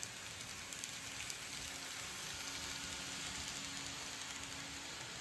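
Kato model Amtrak train running along the track past the camera: a steady hiss of wheels rolling on rail with a faint motor hum, and a few light clicks about a second in.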